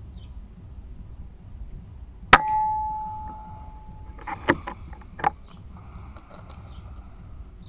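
A single shot from a Daystate Red Wolf .22 air rifle firing an ARG slug: a sharp crack with a metallic clang that rings on for about two seconds. Two short sharp clicks follow a couple of seconds later.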